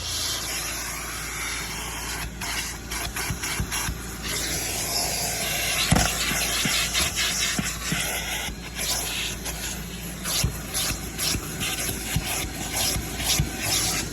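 Pet-hair brush being scrubbed hard over the car's interior upholstery, a fast run of rasping strokes that pull embedded dog hair loose.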